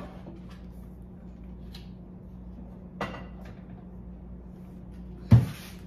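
Kitchen handling noises over a steady low hum: a light knock about three seconds in, then a louder bang near the end, like a cupboard door or cookware being handled.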